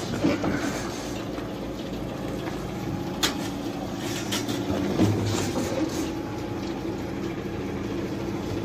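DAF Euro 6 truck's diesel engine running steadily under load as the stuck drive wheel churns in snow and slush, with a couple of sharp clicks about three and five seconds in.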